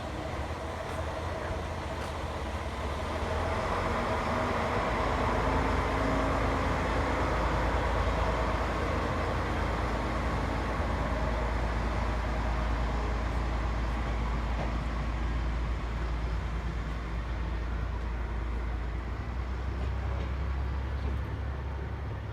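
Diesel railcar running on the line: a steady rumble that builds over the first several seconds and then eases off a little.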